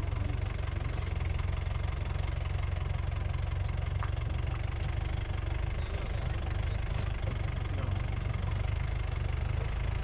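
Vehicle engine running, a steady low drone heard from inside the cabin.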